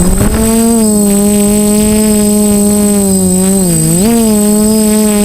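DJI F450 quadcopter's brushless motors and propellers whining at a steady pitch, having just been throttled up; about three and a half seconds in the pitch dips briefly and springs back as the throttle is eased and reapplied.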